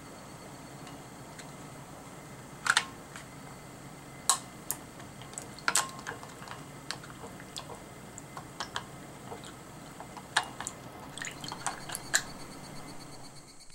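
Dried kombu being pressed down into a glass bowl of liquid to soak: irregular sharp clicks and taps against the glass, a dozen or so, starting about three seconds in.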